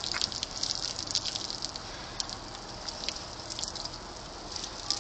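Spray from a lawn sprinkler pattering and splashing on the grass, with many irregular sharp ticks as an American bulldog bites at the water.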